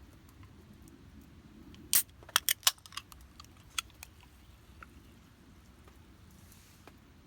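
A quick run of four or five sharp clicks about two seconds in, with a few fainter ones after, over a faint steady low background.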